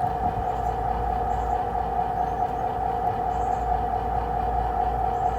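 G-scale model locomotive running on garden railroad track: a steady, even hum, with faint high chirps now and then.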